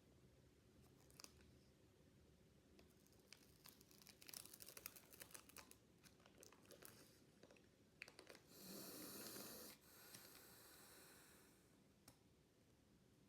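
Faint crinkling and light clicks of card and foil handling, then a louder tearing rustle about eight and a half seconds in, lasting over a second: a foil Pokémon booster pack wrapper being torn open.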